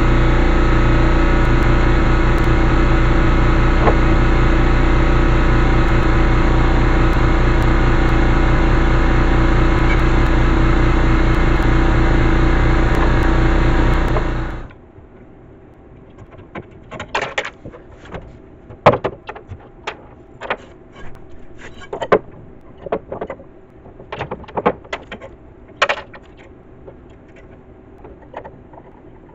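A loud, steady sound with several held tones cuts off abruptly about fifteen seconds in. It is followed by a series of light knocks, clicks and clunks, typical of car body panels and hardware being handled and fitted.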